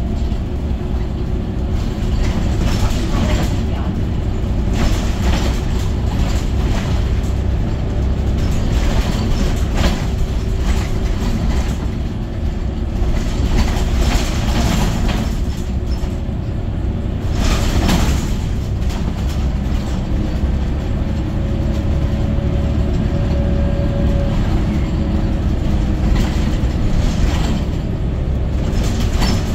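Scania OmniCity city bus on the move, heard from inside the passenger saloon: a steady low engine and road rumble with frequent rattles and knocks from the bodywork and fittings.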